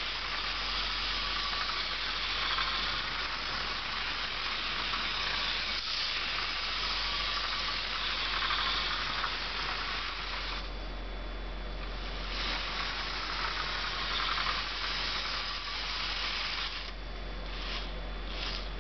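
Bachmann HO scale diesel locomotive model running around its track, its small electric motor and wheels giving a steady whirring hiss that drops away briefly twice.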